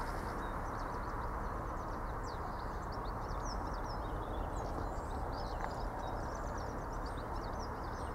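Small birds chirping in many short, quick calls over a steady low background hum of outdoor noise.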